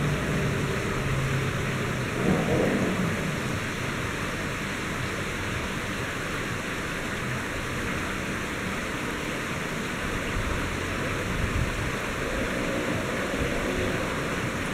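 Heavy rain falling in a thunderstorm, a steady hiss, with a low rumble about ten seconds in.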